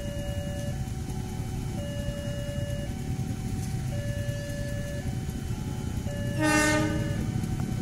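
Electronic level-crossing warning alarm sounding a repeating two-note chime that alternates about once a second, over a low rumble. About six and a half seconds in, the approaching diesel locomotive gives one short, loud horn blast.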